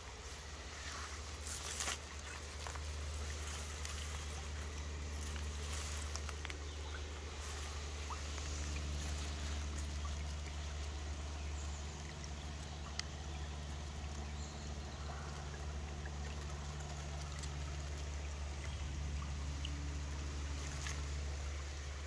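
Woodland ambience beside a shallow stream: a faint trickle of water over a steady low rumble, with a few small clicks and rustles.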